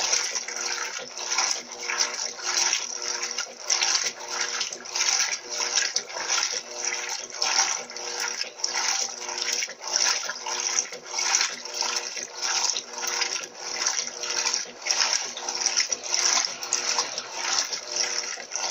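Electrolux Turbo LT12B top-loading washing machine agitating a load of dish towels at its extra-low water level: water sloshing in rhythmic surges, a little under two a second, over the steady hum of the motor.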